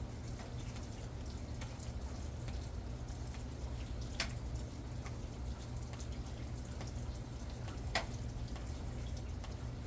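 Scattered water drops pattering after rain, with two sharper single drops about 4 and 8 seconds in, over a steady low rumble.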